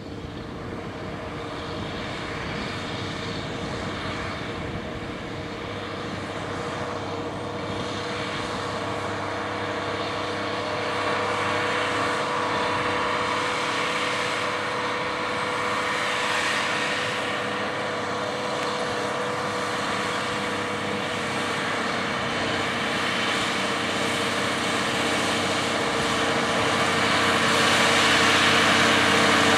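J.I. Case 2594 tractor's turbocharged six-cylinder diesel engine running steadily under load while pulling a corn planter, a constant drone that grows steadily louder as the tractor approaches.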